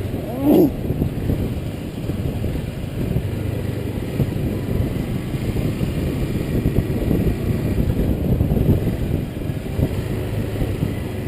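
Motorcycle engine running steadily at road pace, with wind noise, and a brief call or shout about half a second in.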